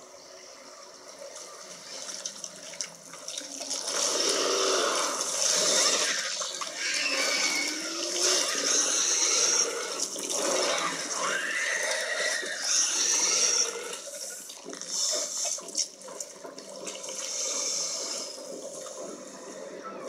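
Water splashing and sloshing in uneven surges, growing louder about four seconds in, with a few short sliding tones partway through.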